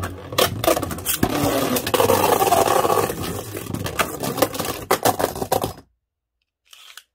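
Two Beyblade Burst tops, Wonder Veltriac with a Volcanic driver and Left Astro, spinning and clashing in a plastic Pro Series stadium. Their tips make a loud, continuous whirring scrape on the stadium floor, broken by sharp clacks as they hit, and it stops abruptly about six seconds in, when the battle ends in a ring out.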